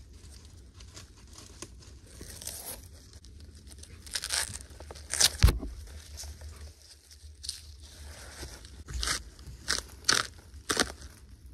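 Fibrous bark being torn and stripped from a log by hand: a quiet rustle of fibres, then a series of short, sharp tearing cracks from about four seconds on, the loudest about five and a half seconds in.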